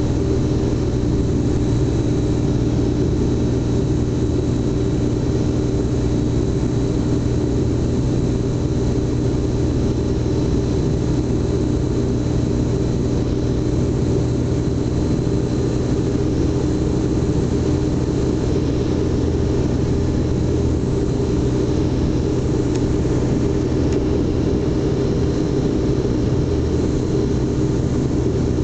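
Light aircraft's engine running steadily in flight, a constant drone that holds one pitch, with a thin steady whine above it and wind noise over the microphone.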